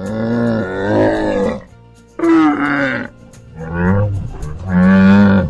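Donkey braying: four drawn-out calls with short gaps between them, the pitch swinging up and down between them.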